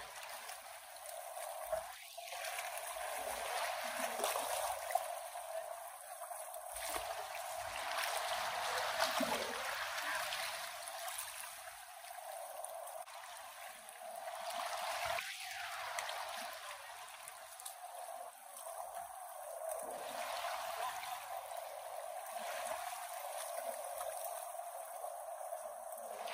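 Kenai River water rushing and trickling, a steady noise that swells and eases every few seconds.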